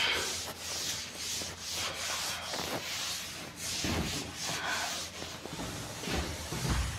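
Cloth duster wiping chalk off a chalkboard: repeated rubbing strokes, about two a second.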